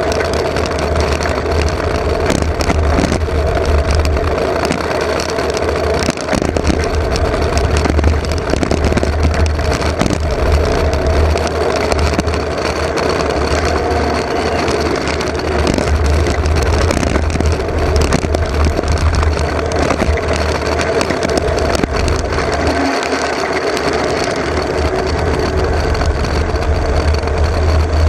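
Engineless soapbox cart rolling fast downhill on asphalt: a steady rumble and whine from its wheels, frequent small knocks and rattles from the body, and wind buffeting the onboard microphone.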